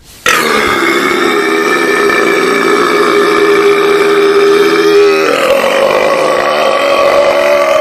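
One very long, loud burp, held unbroken for about eight seconds, its tone shifting higher about five seconds in.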